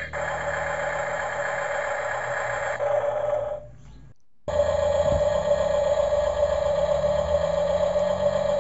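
Small electric motor and plastic gearbox of an RC dump truck running steadily, a thin whine as it tips its bed, cut off for about a second near the middle.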